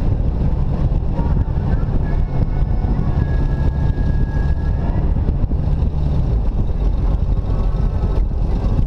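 Jeep Wrangler driving along a winding paved road, a steady low rumble of engine, tyre and wind noise as heard from its hood.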